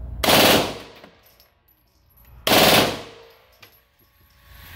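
Kriss Vector 9mm submachine gun fired in two short bursts of rapid full-auto fire, each about half a second long and about two seconds apart. Each burst rings out in the indoor range.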